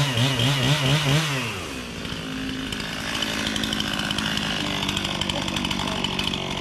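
Two-stroke chainsaw revved up and down in quick pulses, about three a second, then dropping back to a steady idle about a second and a half in.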